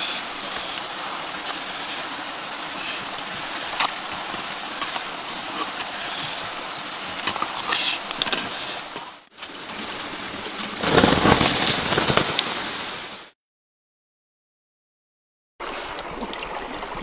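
Steady rushing of running water like a stream, with a few faint ticks, louder for about two seconds just past the middle, then cutting out completely for about two seconds before the water sound returns near the end.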